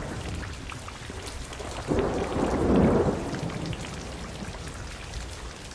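Steady rain falling, with a rumble of thunder that swells about two seconds in and dies away a second later.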